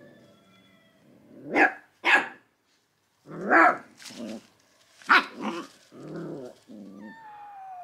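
Puppies barking: about six sharp, high yapping barks, then lower, softer growly barks and a falling whine near the end. This is typical alarm barking at kittens they have just been shown and are afraid of.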